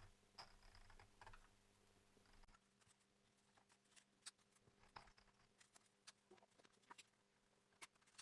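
Near silence with faint, irregular light clicks and taps, small handling sounds of the mini sewing machine and paper, with no steady running-machine rhythm.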